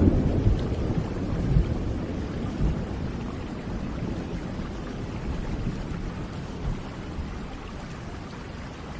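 Steady rain with a low roll of thunder that fades away over the first few seconds, leaving the rain alone.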